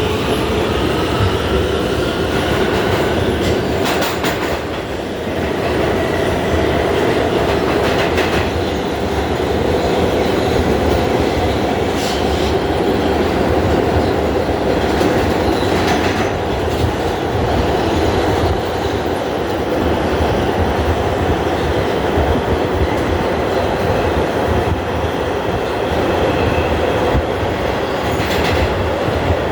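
New York City subway train running along the track at speed: a steady rumble with an electric motor whine that climbs in pitch near the start, and sharp clacks every few seconds as the wheels cross rail joints.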